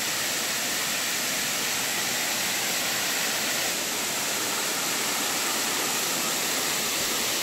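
Benton Falls, a cascading waterfall, rushing steadily as its water slides down a broad sloping rock face.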